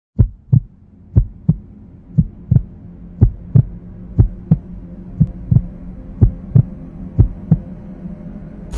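Heartbeat sound effect: eight lub-dub double thumps, about one a second, over a steady low drone that grows in. A burst of static-like hiss starts right at the end.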